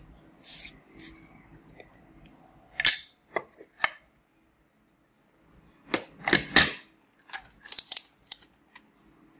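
Small plastic bags of 5 mm LEDs crinkling and clicking as they are handled and shifted on a table. The sound comes in scattered short bursts, with a brief silent gap near the middle.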